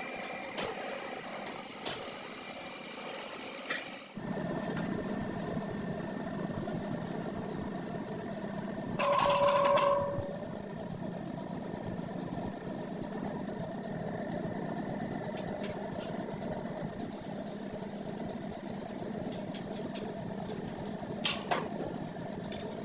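A machine running steadily, with clicks at first and a brief louder whine about nine seconds in.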